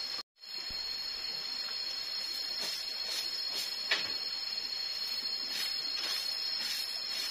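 Soft brushing strokes of a broom sweeping a bamboo slat floor, roughly every half second, with one sharper click about four seconds in. Behind them runs a steady high-pitched drone of forest insects. The sound cuts out briefly just after the start.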